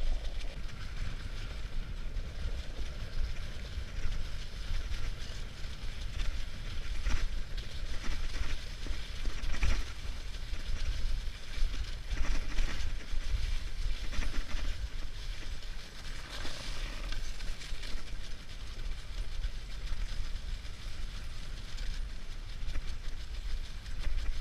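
Dog sled gliding along a snowy trail behind a running team: a steady rushing of the runners on the snow under a low rumble, with a few sharper knocks from the sled.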